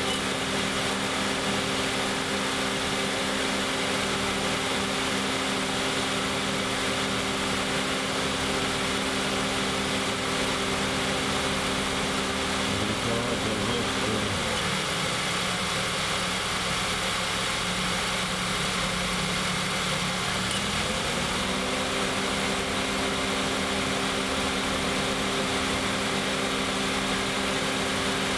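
Honda CR-V engine idling with the freshly rebuilt air-conditioning compressor clutch and pulley turning, and no hum from the clutch bearing. The idle note drops about halfway through and rises back several seconds later.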